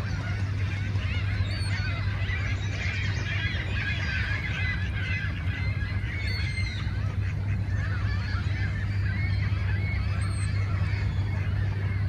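A dense chorus of many birds calling at once, short overlapping honking calls without a break, over a steady low rumble.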